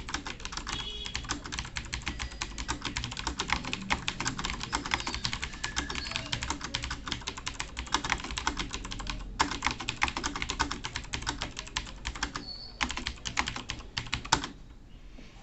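Fast touch-typing on a computer keyboard during a typing test, at about 105 words per minute: a rapid, continuous run of key clicks with a brief break about nine seconds in, stopping about a second before the end.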